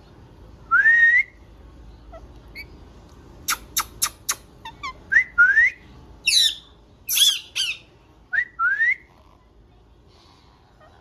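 Pet green parrot whistling and squawking. It gives a rising whistle three times, a quick run of four sharp chips about a third of the way in, and harsh falling squawks around the middle.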